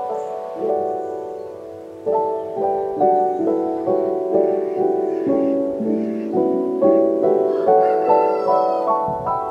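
Background music: a gentle piano melody of single notes and chords, played at an even pace.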